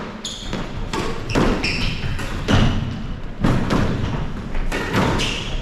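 A racquet-sport rally: the hollow rubber ball thudding off the court walls and floor and being struck by racquets, about two hits a second, with short high squeaks of court shoes in between.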